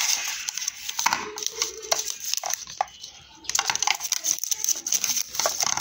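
Plastic wrap crinkling and cardboard packaging rustling as an earbud box is opened by hand: a dense run of quick crackles and rustles, easing off briefly about three seconds in.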